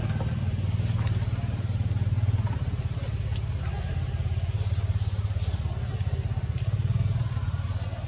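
An engine running steadily at low speed, giving an even low hum, with a few faint clicks over it.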